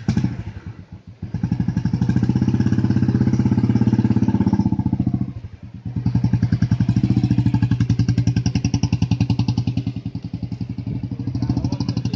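Loud, rapidly pulsing motor-like drone from the light-and-sound show's loudspeakers. It breaks off for about half a second near the middle, then resumes.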